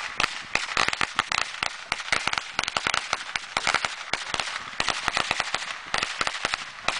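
A box of small firecrackers going off, setting each other off in a rapid, irregular string of sharp pops, several a second, over a crackling hiss.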